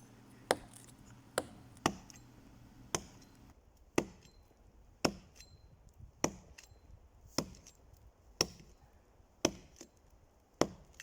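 An axe chopping into the trunk of a standing dry pine to fell it, in single sharp blows at about one a second.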